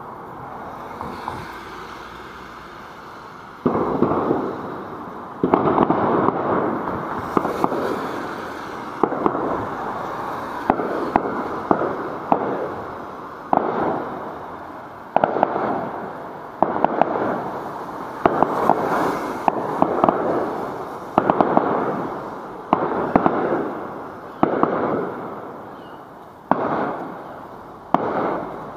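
A series of loud bangs, starting a few seconds in and coming about every one and a half to two seconds, each trailing off in a drawn-out echo.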